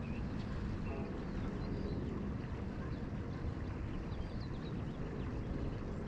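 Gen 1 Kawasaki KLR650's single-cylinder engine idling as a steady low rumble, with faint bird chirps above it.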